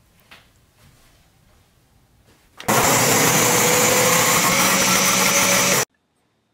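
Nutribullet blender motor running at full speed, pureeing sautéed spinach and onion into a sauce. It starts about two and a half seconds in, runs steadily for about three seconds, and cuts off suddenly.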